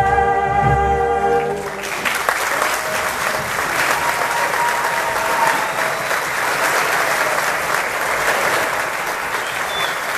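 Wind and percussion ensemble holds its final chord for about two seconds and cuts off, marking the end of the piece; the audience then applauds steadily.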